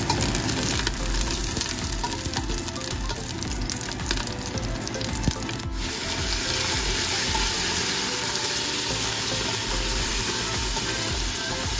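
Garlic and then pieces of chicken sizzling in hot oil in a stainless steel pot, stirred with a spatula. Dense crackling in the first half gives way to a steadier sizzle about six seconds in.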